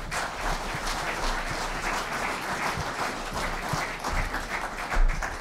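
Audience applauding: a dense clatter of many hands clapping that eases off near the end.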